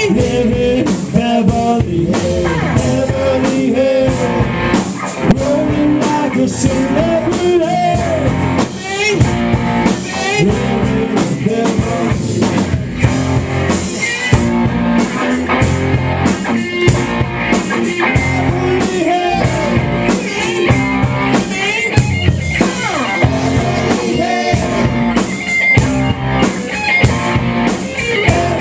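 Live rock band playing loud: an instrumental break, with a lead electric guitar bending notes over rhythm guitar, bass and drums.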